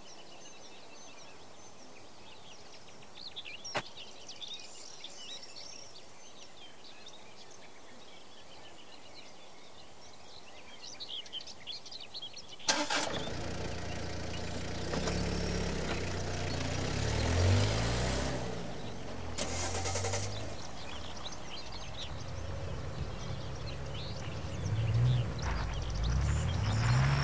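Birds chirping over quiet open air, with a faint click a few seconds in. About halfway through a sharp knock, then car engines start and run, rising in pitch several times as the cars pull away.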